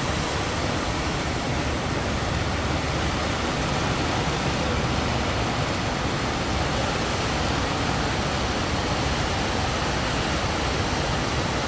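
Steady roar of heavy surf breaking: a constant, even rush with no let-up.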